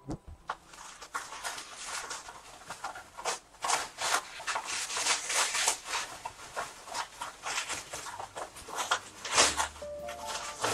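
Parcel packaging rustling and crinkling in quick, irregular handfuls as it is unwrapped by hand.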